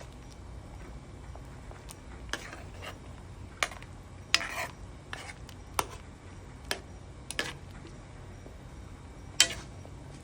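A metal spoon stirring a pot of simmering broth, knocking and clinking against the pot at irregular intervals, with one sharper knock near the end.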